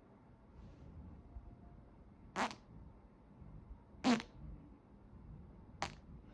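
Three short farts, one after another, roughly a second and a half to two seconds apart.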